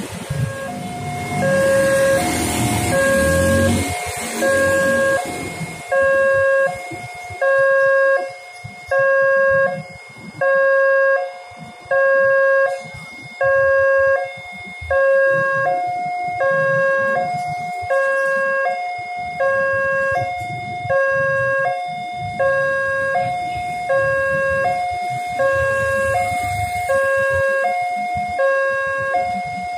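Railway level-crossing warning alarm sounding a steady electronic two-tone signal, a low and a higher note alternating about once a second, the warning that a train is approaching and the barriers are down. Motorcycle traffic runs underneath for the first few seconds.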